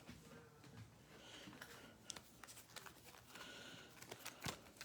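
Faint handling of trading cards: soft sliding brushes and a couple of light clicks as cards are moved through the hand, otherwise near silence.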